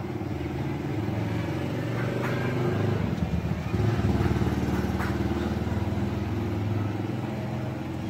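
Hermetic refrigerator compressor running with a steady hum, pulling the suction side down into vacuum.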